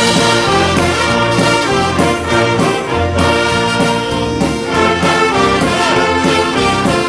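An orchestra playing a piece, violins among the instruments, with many sustained notes sounding together.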